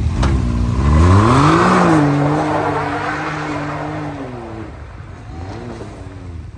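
Off-road side-by-side engine revving hard, its pitch climbing steeply and then holding high before easing off about four seconds in. A loud rushing hiss rides on the peak as the tires spin on the wet, slippery trail.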